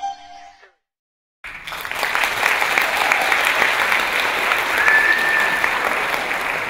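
The last notes of flute-led dance music fade out, and after about a second of dead silence an audience bursts into steady applause. A brief high whistle rises out of the clapping about five seconds in.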